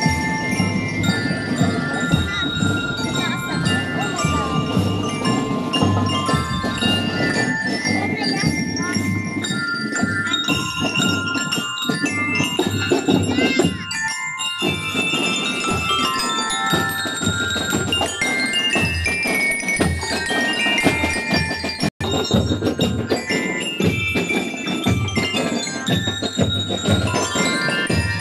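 Drum and lyre corps playing a marching tune: many bell lyres ring out the melody in bright metal-bar notes over a steady drum beat.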